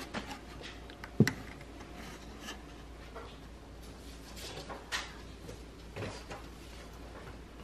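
A few light knocks and clicks over faint room noise, the sharpest about a second in and smaller ones near five and six seconds.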